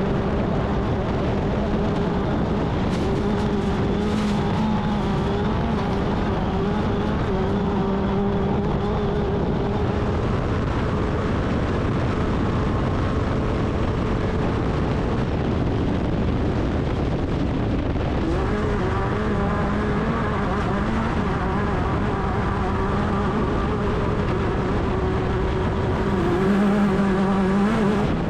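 Class 10 off-road race car's engine running hard at fairly steady high revs, with a constant rough rumble underneath; the engine note fades and wavers about halfway through, then comes back strong.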